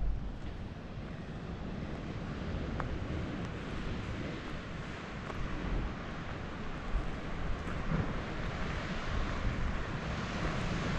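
Wind rumbling in gusts on the microphone over a steady rush of sea surf, growing a little louder toward the end.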